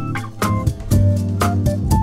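Background music with a steady beat, pitched instrument notes and a strong bass line.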